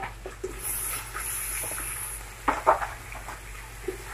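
Onions frying in oil in a large aluminium pot sizzle louder as sliced tomatoes are tipped in, for about a second and a half. Then a few sharp knocks and scrapes of a wooden spatula against the pot as the tomatoes are stirred in.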